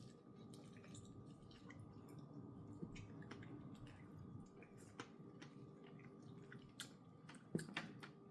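Faint chewing and eating mouth sounds, with scattered small wet clicks; one sharper click about seven and a half seconds in, over a faint steady hum.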